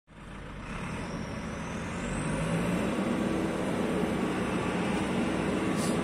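A vehicle engine running, with steady mechanical noise that swells over the first couple of seconds.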